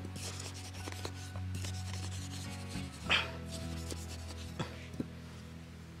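A hand digging tool scraping and chopping into dry sandy soil, with a few gritty scrapes, the strongest about three seconds in. Low, steady background music runs underneath.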